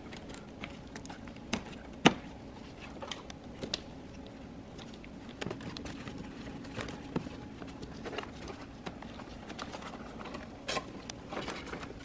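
Hands in work gloves handling wiring and rubber and plastic engine-bay trim while securing a wire. There are scattered light clicks and rustling, with a sharper click about two seconds in. A faint steady hum runs underneath.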